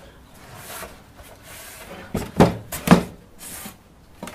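Polystyrene beehive box being handled on a workbench: a soft rubbing as a rag wipes it, then four quick knocks and clunks in about a second as the box is shifted and set down.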